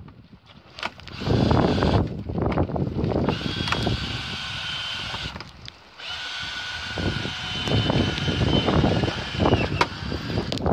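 Wind buffeting the microphone, with clicks and clunks from a stainless outboard bracket's latch and plates being worked by hand. A steady high-pitched whine sounds twice, first for about two seconds and then for about three and a half.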